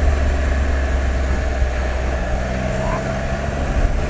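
Can-Am Spyder RT three-wheeler riding at low speed, with its engine running under a steady, heavy wind rumble on the microphone.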